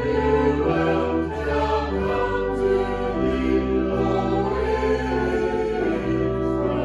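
Choral music: held chords sung by a choir, shifting every second or so.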